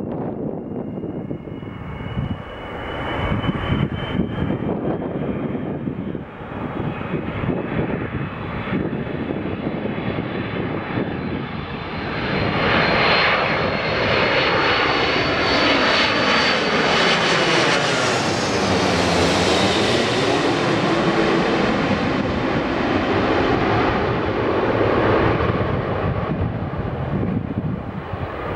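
Airbus A330-300 airliner on final approach, jet engines running with a high whine over a steady roar. The whine rises slowly in pitch as the plane nears, the sound grows loud as it passes low overhead about halfway through, then drops in pitch and fades as it flies away.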